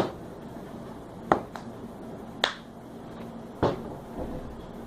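Slime bubbles bursting: four sharp pops, about one a second.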